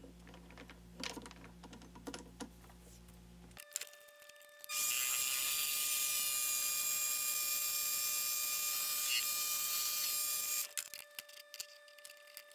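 Mini lathe running while a turning tool faces the end of mild steel round stock: a steady whine and hiss for about six seconds in the middle, starting and stopping abruptly. Before and after it come light clicks and taps of the steel bar being handled in the three-jaw chuck.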